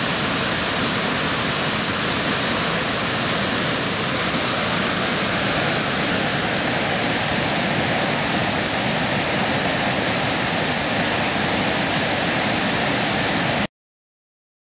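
Waterfall swollen by heavy rain, its falling water making a steady, unbroken rush; the sound cuts off suddenly near the end.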